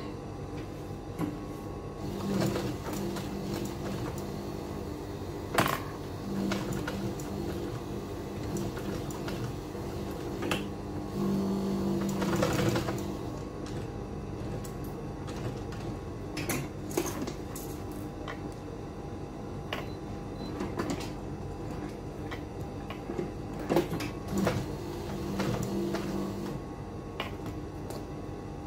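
Protex industrial sewing machine stitching through a leather bag panel in several short runs with pauses between, its motor humming steadily throughout. A few sharp knocks from handling the work come between the runs.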